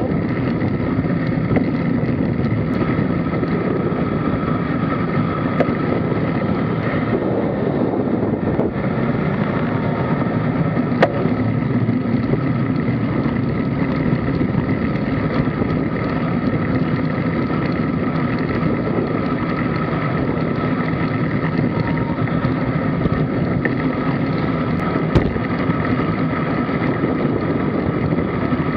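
Steady wind rush on a bicycle-mounted camera's microphone mixed with tyre and road noise while riding, with a couple of brief knocks.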